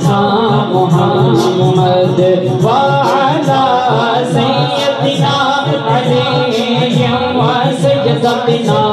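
Devotional durood singing: a male voice sings long, wavering melismatic lines of blessings on the Prophet, over a steady beat of sharp taps about twice a second.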